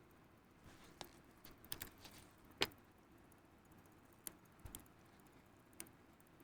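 Small, sharp clicks and taps of metal tweezers and tools against the parts of a pocket watch movement as its keyless work is fitted back in: about seven separate clicks at irregular moments, the loudest about two and a half seconds in.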